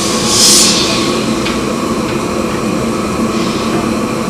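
Steady loud machinery drone, with a brief sharp hiss about half a second in and a faint tick a second later.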